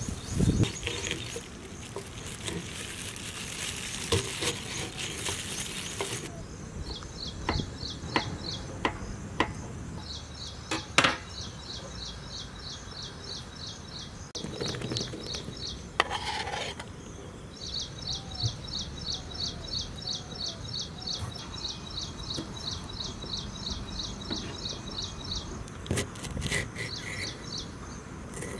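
Knife chopping bell peppers on a wooden cutting board, with separate sharp taps at each stroke. Behind it an insect trills in rapid, even pulses, in two long spells.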